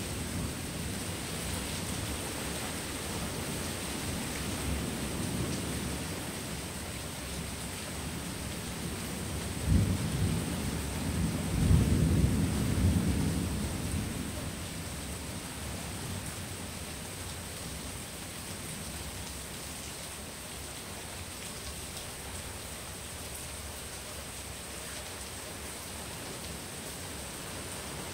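Steady rain with thunder: a short, sharp rumble about ten seconds in, then a longer rolling rumble a couple of seconds later that fades away.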